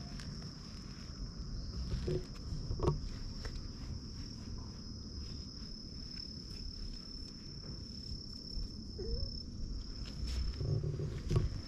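Steady high-pitched insect trill over a low rumble, with a few soft knocks about two to three seconds in and again near the end.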